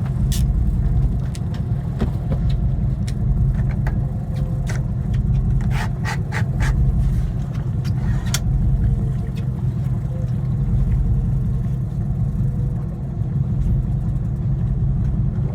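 Charter fishing boat's engine running with a steady low drone, with a few sharp clicks about six seconds in.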